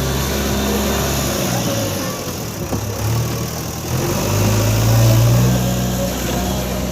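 Diesel engine of a working earthmoving machine or tractor running under changing load. Its low hum thins out about two seconds in, then comes back stronger about four seconds in as it revs up.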